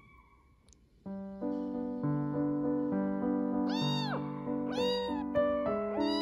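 Piano music starting about a second in, over which a young kitten mews three times, short rising-and-falling cries about a second apart.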